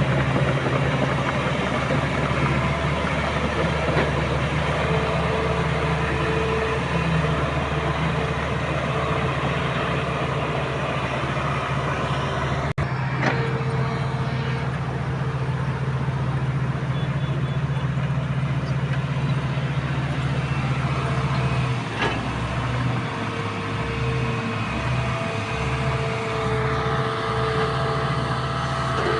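Komatsu D85SS bulldozer's diesel engine running steadily under work, with a momentary break about halfway through.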